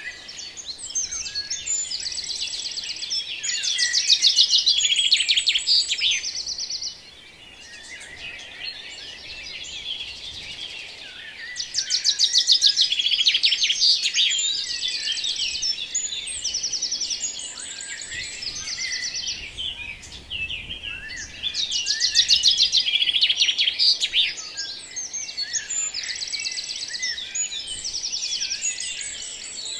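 Recorded birdsong ambience: several songbirds chirping and trilling together, with louder bursts of fast trills every several seconds.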